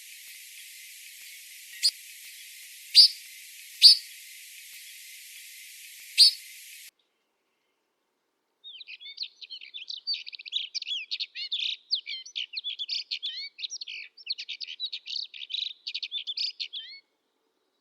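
Wild mountain birds: four short, sharp calls over a steady hiss, then after a break a small songbird's fast, unbroken twittering song lasting about eight seconds.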